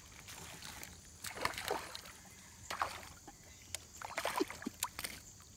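A small hooked largemouth bass splashing and thrashing at the water's surface in several short bursts as it is reeled in toward the boat.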